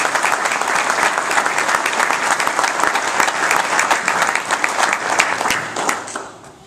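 Audience applauding: many hands clapping at once, fading out about six seconds in.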